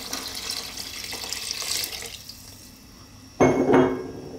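Water poured from a glass jug into a pot of beef and tomato stew, splashing steadily for about two seconds before stopping. About three and a half seconds in comes a loud double knock with a short ring, the glass jug being set down.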